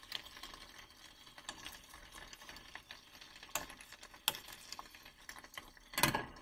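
Faint scattered crackling of egg mixture cooking in a frying pan, with a few small clicks, then near the end a metal pan lid set down on the pan with a brief clank.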